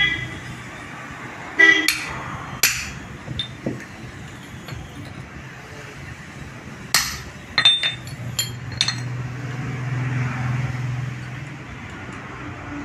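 Metalwork clanks: a hammer striking a small steel bracket on a steel block, and steel parts clinking as they are handled. About a dozen irregular clanks, some with a short ring, mostly in the first four seconds and again around seven to nine seconds in; a low hum swells in the second half.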